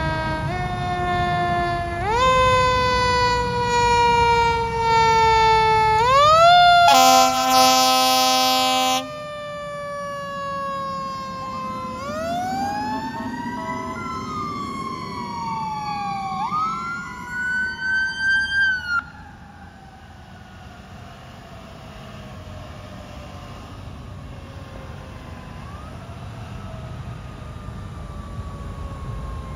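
Fire engine and rescue truck sirens wailing, each cycle rising quickly and falling slowly, with a steady horn blast lasting about two seconds a quarter of the way in. A second siren overlaps in the middle, then about two-thirds through the sirens drop in level and fade with a falling pitch, one more short rise near the end.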